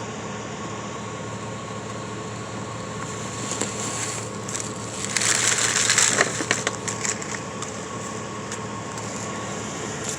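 Steady mechanical hum. A burst of rustling and clattering about five seconds in lasts a couple of seconds.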